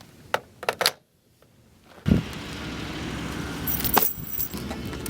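A few quick metallic jingles like keys, then after a second of quiet a car comes on suddenly and keeps running steadily, with a few more clicks over it.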